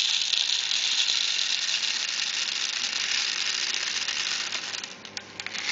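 The mechanical winding wheel of a Cybergun 5000-round M4/M16 airsoft high-capacity magazine being turned, its ratchet clicking rapidly and continuously, then thinning to a few separate clicks near the end.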